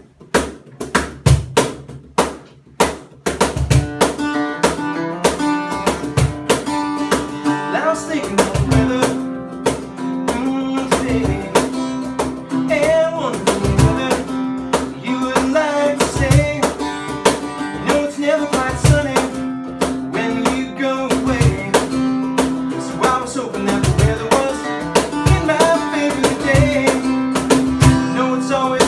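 Live acoustic country song: an acoustic guitar strummed, sparse at first and filling out about three seconds in, with a low drum thump every two to three seconds. A man's voice sings the lead from about nine seconds in.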